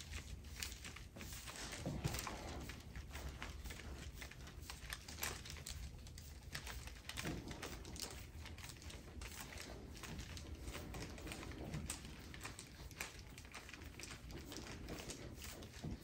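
Faint rustling and scattered small clicks from a deep-tissue back massage: skin and clothing shifting against the treatment table under slow elbow pressure.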